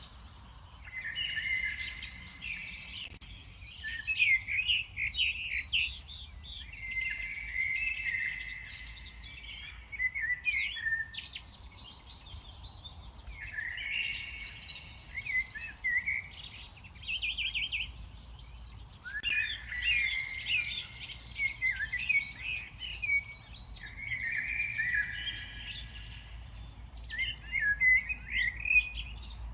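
Songbirds singing in a park, short phrases of chirps and trills about every three to five seconds, over a low steady background rumble.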